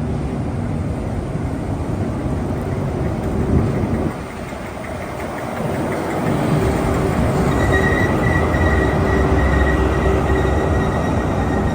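A train running past on the rails with a steady rumble that dips briefly and then swells. About two-thirds of the way through, a thin high steady squeal joins in, typical of wheel or brake squeal.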